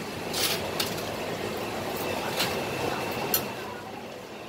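Busy hawker-centre din: a steady wash of crowd chatter and kitchen noise, with a few sharp clinks and knocks of utensils.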